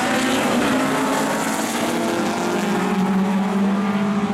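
A pack of historic rallycross cars, VW Beetles among them, accelerating hard off the start line with several engines revving loudly together, their note steadying as they pull away.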